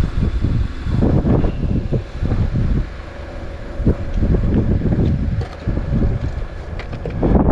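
Wind buffeting the microphone: a low rumble that rises and falls in irregular gusts, growing louder near the end.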